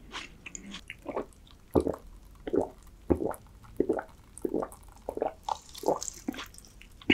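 Close-miked gulping of a drink from a glass: a steady series of short wet swallows, about one every half-second.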